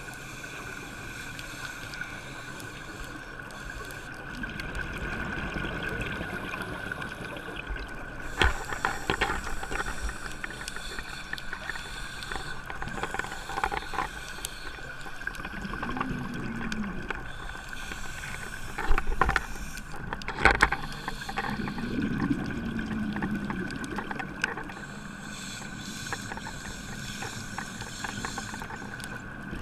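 Muffled underwater sound picked up through a diver's camera housing: scuba regulator breathing and the rumble of exhaled bubbles over a steady faint whine. A few sharp knocks come about a third of the way in and again about two-thirds in.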